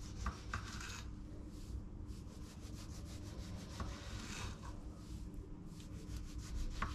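Kitchen knife sawing through a tomato's skin and flesh on a bamboo cutting board: runs of quick rasping strokes, with a few light knocks of the blade on the board.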